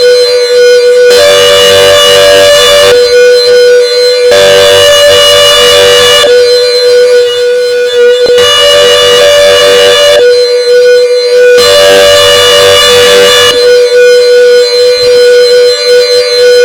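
Klaxon CS8 siren sounding at a steady pitch, very loud, its tone growing brighter and duller in turn about every three and a half seconds.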